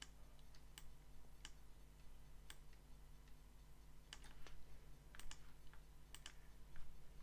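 Computer mouse and keyboard clicks: about fifteen scattered, sharp clicks, some in quick pairs, over a faint steady low hum.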